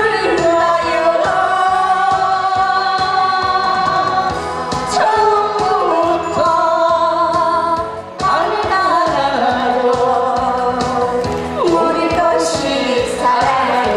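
A woman singing a song into a microphone over amplified backing music with a steady beat, with a brief break in the music about eight seconds in.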